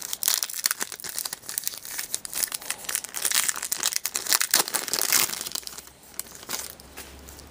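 Wrapper of an O-Pee-Chee hockey card pack crinkling and tearing as a pack is pulled from the hobby box and ripped open; the crackling dies down about six seconds in.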